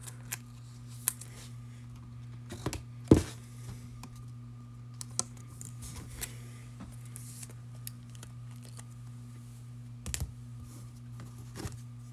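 Football trading cards being handled and flipped through: scattered light clicks and snaps, the sharpest about three seconds in, over a steady low hum.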